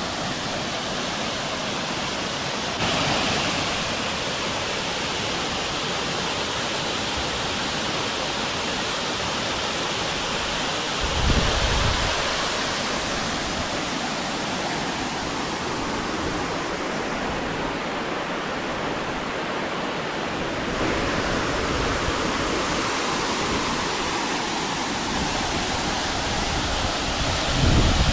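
Kakochang waterfall's falling water, a steady, loud rush heard from close by in its spray. There are two brief low rumbles, a little under halfway through and again near the end.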